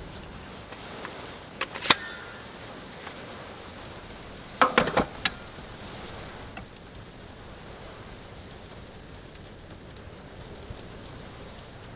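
Steady hiss of a wind-driven snowstorm, with a single sharp click about two seconds in and a quick run of sharp knocks around five seconds in.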